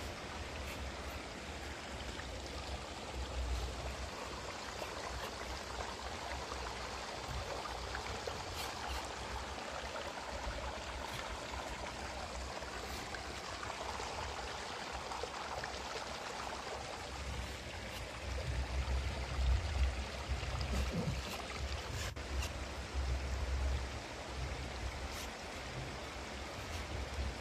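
Steady rushing background noise, with faint rustles and clicks of a crochet hook drawing polyester yarn through stitches and low bumps of handling in the latter part.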